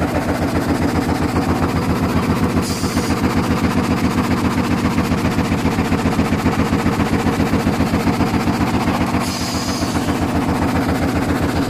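Multi-blade frame saw running as it cuts a squared pine log into boards: a steady, rapid, even pulsing from the reciprocating blade frame. Two short hisses come through, about three seconds in and again about nine seconds in.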